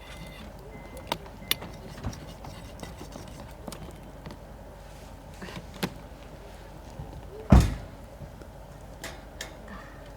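Scattered light clicks and knocks of objects being handled, with one heavy thump about three-quarters of the way through.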